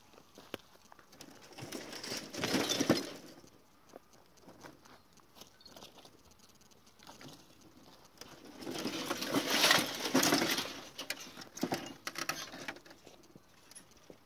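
Rustling and scraping in dry grass and brush, with plastic knocks and scrapes as the casing of an old CRT television is lifted, turned and tipped over by hand. The noise comes in two swells, a short one about two seconds in and a longer one from about eight and a half seconds, with scattered small clicks between.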